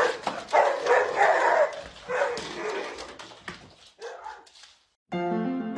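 A dog barking and yelping in repeated loud bursts that trail off about three seconds in. Near the end, music starts.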